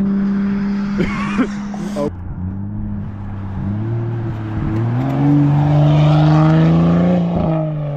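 Exhaust of a BMW F30 335i's turbocharged N55 straight-six with catless downpipes and muffler delete. It holds a steady drone, changes abruptly about two seconds in, then rises in pitch as the car accelerates. It is loudest from about five to seven seconds in as the car goes past, then drops away.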